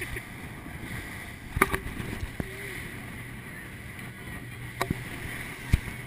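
A fast rigid inflatable boat running through choppy sea: a steady engine drone under rushing wind and water. Sharp thumps sound about one and a half seconds in, near five seconds and again near the end, as the hull slams into the waves.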